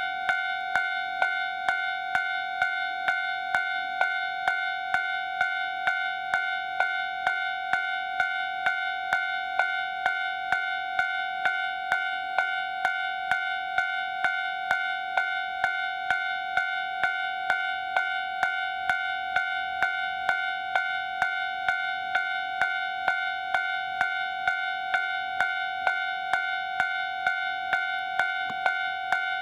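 Electronic level-crossing warning bell ringing steadily, about two strikes a second over a constant ringing tone: the crossing is activated for an approaching train.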